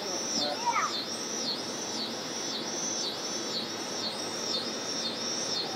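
A high, even chirp repeated about twice a second without a break, from a small animal outdoors.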